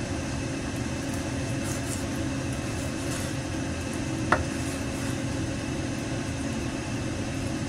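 Kitchen knife cutting raw chicken thigh on a wooden cutting board, with one sharp knock of the blade on the board about four seconds in. A steady machine hum runs underneath.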